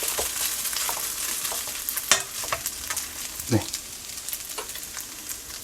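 Fried rice sizzling in a frying pan right after the burner is turned off, the sizzle slowly dying away, with a few light clicks.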